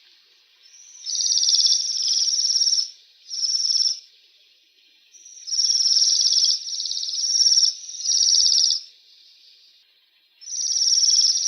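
Waxwing giving high, thin trilling calls in about five bouts, each half a second to two seconds long, with short pauses between them.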